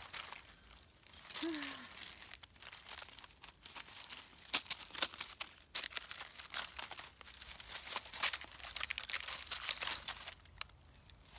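Puppy chewing and rooting through dry sticks, twigs and leaves: irregular crackling and snapping, busiest in the second half.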